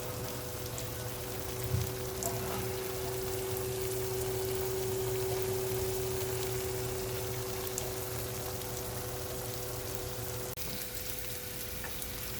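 Chicken pieces sizzling and simmering in a pan as their released water cooks off, an even frying hiss, over a steady hum. A light knock about two seconds in.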